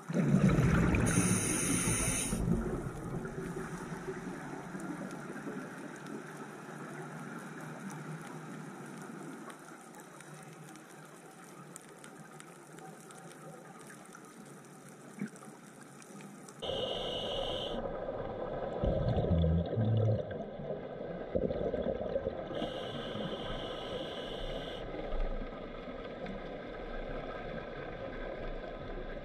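Underwater camera sound: a steady wash of water noise, with a loud bubbling burst in the first two seconds or so. The tone shifts about 17 s in, getting louder and fuller.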